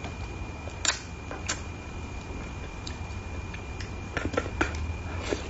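Scattered sharp clicks and ticks of chopsticks and a plastic-gloved hand working over a platter of spicy braised carp, with a quick cluster of clicks near the end. A faint steady high whine runs underneath.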